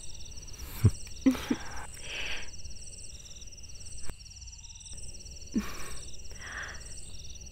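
Crickets chirring steadily, a pulsing night-time insect drone, with a few soft breaths and a faint thump about a second in.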